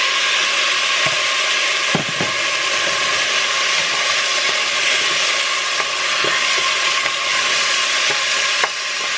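Rice sizzling in hot olive oil in a pot just after a blended onion and garlic mixture is poured in, steady and loud, while a wooden spoon stirs through it with a few light knocks against the pot.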